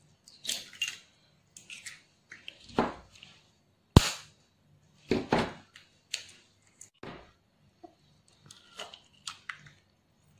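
Eggs being cracked open by hand over a ceramic dish: scattered crackles and taps of eggshell, the loudest a single sharp crack about four seconds in.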